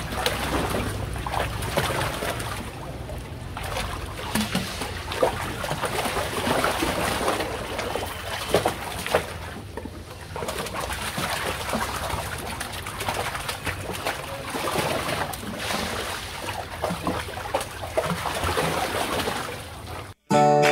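Shallow pool water sloshing and splashing as two Rottweiler puppies wade and paddle about, with a bird calling in the background.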